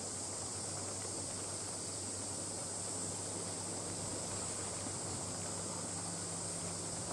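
Steady high-pitched hiss of outdoor background noise over the water, with a faint low hum underneath.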